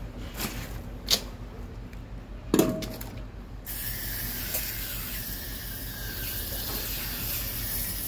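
Coil cleaner spraying from a sprayer wand onto a window air conditioner's condenser coil: a steady hiss that starts about three and a half seconds in. Before it come a sharp click about a second in and a louder knock at about two and a half seconds.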